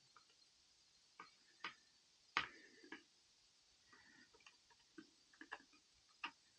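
Faint, irregular small clicks and taps of a prying tool working against an opened phone's battery and frame, about seven in all, the loudest about two and a half seconds in.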